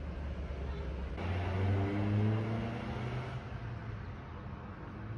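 A car engine running and rising in pitch as it speeds up, loudest about two seconds in and then fading.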